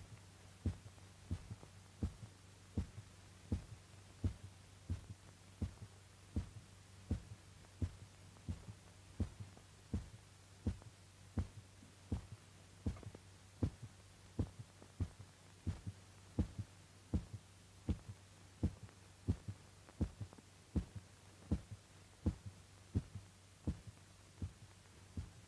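Heartbeat sound: short, even thumps about one every 0.7 seconds, standing for the dog's heart as its blood is drained, over a steady low hum.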